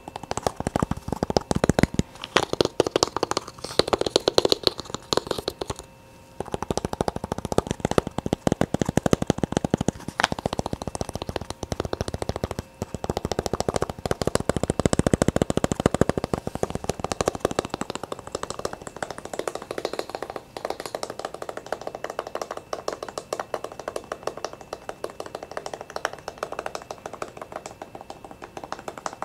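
Rapid, dense tapping: many quick light taps in a row, with short pauses about six seconds in and again near twelve and a half seconds.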